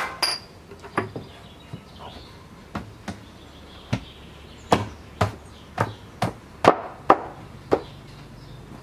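Sharp knocks of wood on wood, about fifteen at irregular intervals, as the maple legs and aprons of a table frame are knocked into place; the loudest come near the end.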